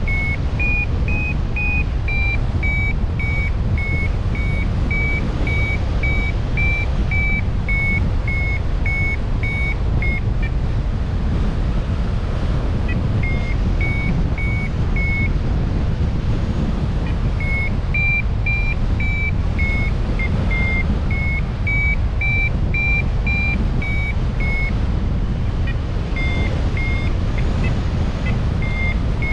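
Small metal bell, like a hiker's bear bell, ringing about twice a second over a steady low rumble. It stops briefly a few times.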